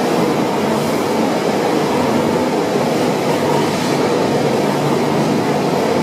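Steady, loud running noise of carbonization-plant machinery, an even din with no breaks or changes.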